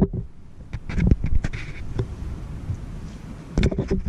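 Handling noise as the action camera is picked up and repositioned: irregular knocks, clicks and a low rubbing rumble on the microphone, bunched about a second in and again near the end.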